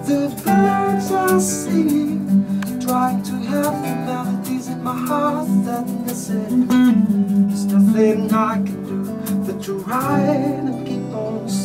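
Acoustic guitars strummed in a steady rhythm while a man sings short melodic phrases over them, a live acoustic band performance.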